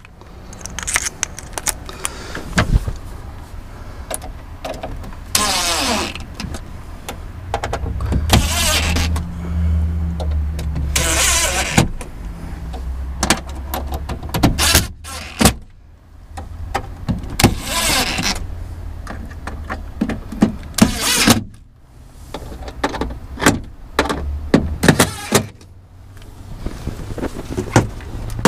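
Cordless drill/driver running in several short bursts of about a second each, tightening the screws on the hybrid battery's metal cover, with clicks and small clatter of tools and screws between the runs.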